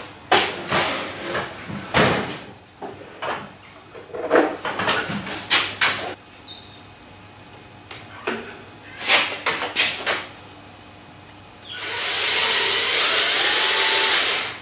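A series of short metal knocks and clatters from handling tools and parts, then about a second before the last three seconds a hand drill starts running steadily, drilling a starting spot in metal.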